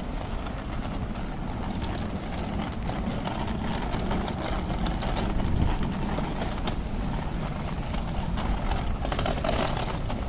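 City street ambience heard on foot: a steady hum of traffic with footsteps tapping on the pavement.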